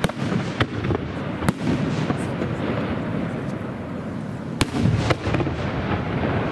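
Aerial firework shells bursting in a display: several sharp bangs, the loudest about four and a half seconds in, over a continuous low rumble of further bursts.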